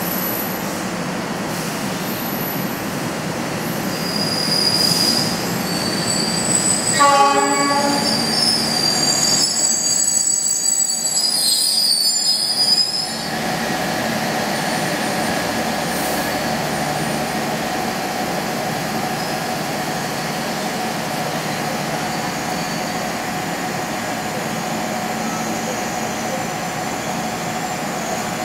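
Passenger train at a station: a short horn blast about seven seconds in, then a few seconds of high-pitched steel wheel squeal, followed by the train's steady running noise.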